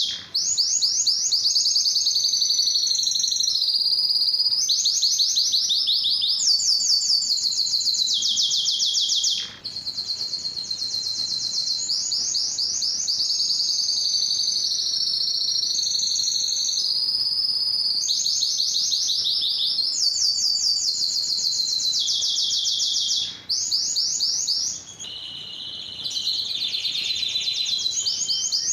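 Male domestic canary singing a long, almost unbroken song of rapid high trills. The phrases change every second or two, with brief pauses about a third of the way in and near the end, and a lower rolling phrase near the end.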